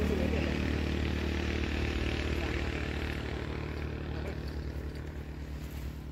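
A motor vehicle's engine running steadily, fading gradually as it moves away.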